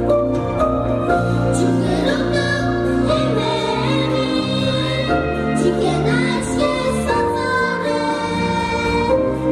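Children singing a song into microphones, with instrumental accompaniment.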